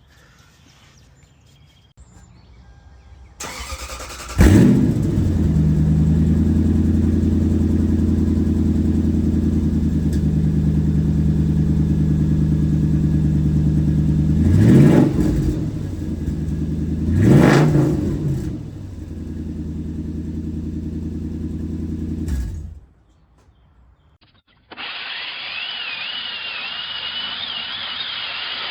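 Toyota Land Cruiser 100-Series engine cranked and started, running with a badly leaking exhaust from a rusted-out muffler and cats, revved twice, then shut off. Near the end a power tool starts up and runs with a steady whine.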